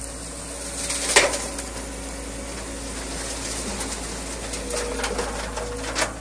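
River stones from a JCB excavator's bucket crashing and rattling into a dump truck's bed: a sharp crash about a second in and another rattling crash near the end. Underneath runs the excavator's steady diesel engine note.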